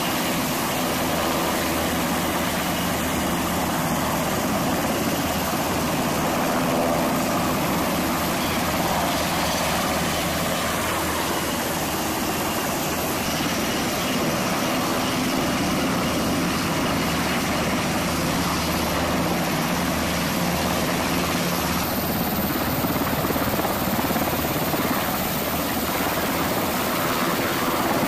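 US Navy H-60 Seahawk helicopters running on the flight line, with one lifting off: a steady, loud noise of rotor blades and turbine engines.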